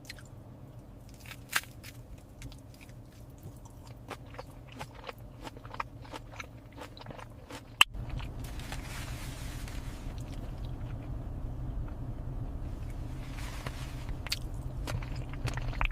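Close-up chewing and biting of crunchy food, with many sharp crunches and clicks. About eight seconds in there is one loud click, and then a steady low hum runs underneath the chewing.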